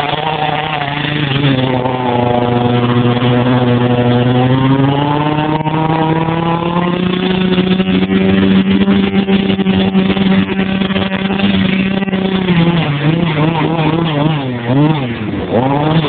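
Small two-stroke engine of a Goped Trail Ripper running hard under throttle, its pitch dipping and climbing with the throttle. It holds a steady high note mid-way, then the revs rise and fall several times near the end.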